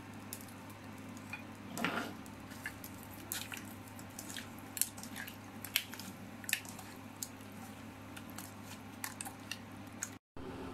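Hands rubbing salt and turmeric into pieces of stinging catfish in a ceramic bowl: soft wet squishing with irregular small clicks of fish against the bowl, over a steady low hum.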